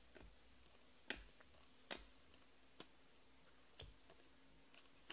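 Stiff chromium Panini Prizm trading cards being slid and flipped through in the hand, giving faint, sharp clicks about once a second against near silence.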